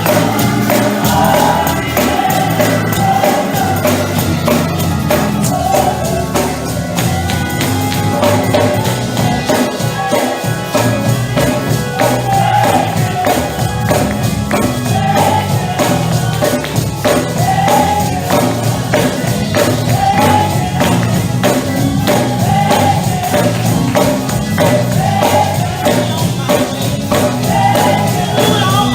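Gospel praise music: a congregation and choir singing over a steady tambourine beat with a band.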